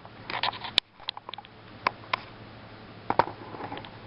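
Cards and small items being handled in a card holder: irregular light clicks and rustling, a quick flurry near the start, a few single clicks, then another flurry around three seconds in.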